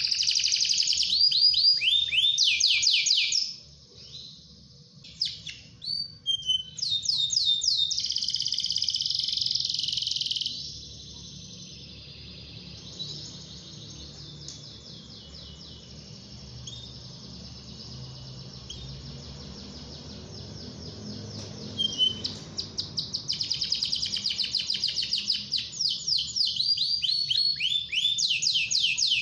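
Domestic canary singing: fast rolling trills and runs of rapid high chirps. A short break comes about four seconds in, and a softer stretch of song in the middle before loud trilling picks up again.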